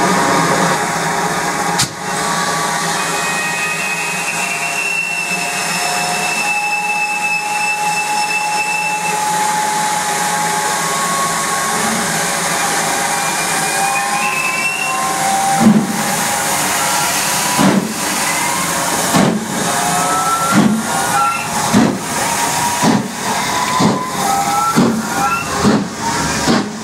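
GWR Castle Class 4-6-0 steam locomotive standing with a steady hiss of steam, then pulling away about 15 seconds in, its exhaust chuffs coming quicker and quicker as it gathers speed.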